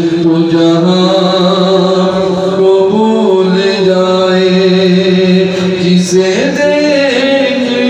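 A man chanting a naat, an Islamic devotional song, into a handheld microphone, holding long, steady notes whose pitch shifts upward about six seconds in.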